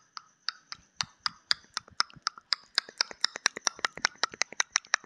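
Countdown timer sound effect: a run of sharp ticks that speed up from about four a second to about eight a second as the time runs out.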